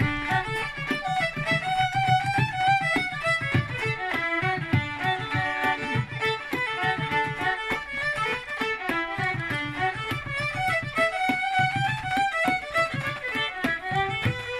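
Two fiddles playing an Irish traditional dance tune in quick, even notes, with a bodhrán beating time underneath.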